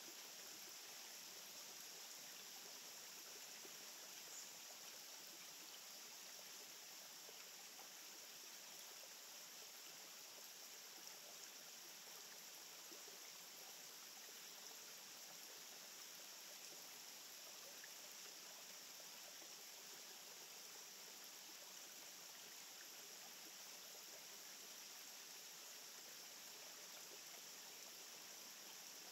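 Near silence: a faint, steady outdoor hiss with no distinct sounds in it.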